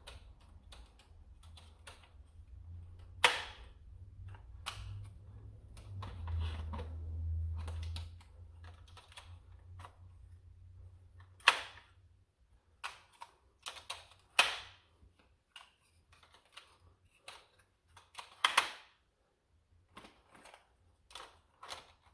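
Plastic dart magazines of a toy foam-dart blaster being handled and snapped into place: irregular light plastic clicks and rattles, with a few louder snaps about 3, 11, 14 and 18 seconds in.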